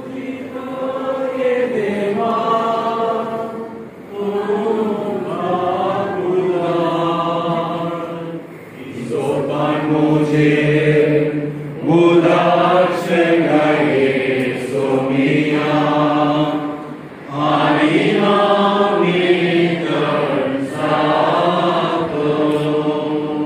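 A congregation singing a hymn together, in sustained phrases of a few seconds each.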